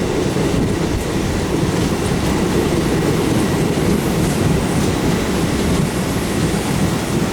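MEMU electric multiple-unit train running, heard on board: a steady rumble of wheels on track with some clickety-clack as it rolls into the station yard.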